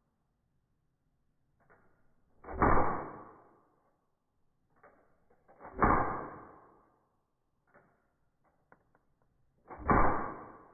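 Three BB gun shots slowed down, each a deep thud with a long fade, a few seconds apart, with faint small clicks between them.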